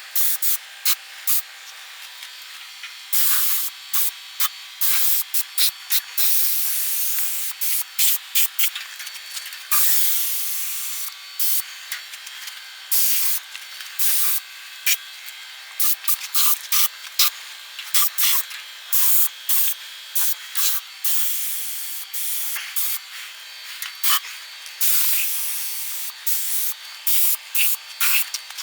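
Air-fed paint spray gun hissing as it sprays acrylic enamel, the trigger pulled on and off in many short bursts with a few longer passes of a second or two.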